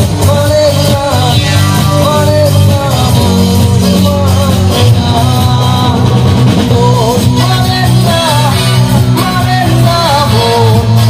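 A male singer sings a song live through a loud PA, backed by a band with electric guitar and heavy bass.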